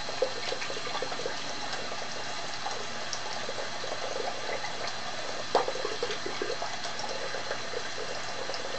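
Old-style double-edge safety razor scraping over lathered beard stubble in short, light strokes, heard as small scratchy ticks with one sharper click about halfway through, over a steady hiss.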